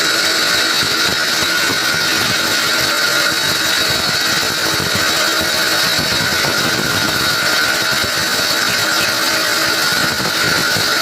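A power tool running steadily, an unbroken mechanical whir with no pauses.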